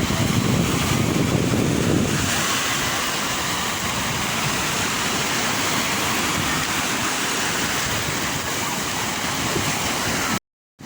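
Sea waves washing in, a steady rush of surf, with a heavier low rumble for the first two seconds. The sound cuts off suddenly just before the end.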